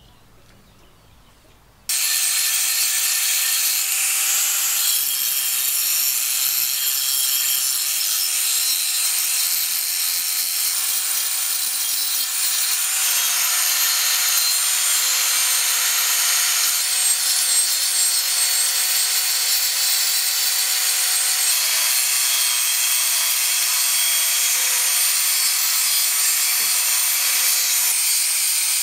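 Electric angle grinder with an abrasive disc grinding rust off a steel knife blade: a loud, steady hiss over the motor's whine, starting suddenly about two seconds in.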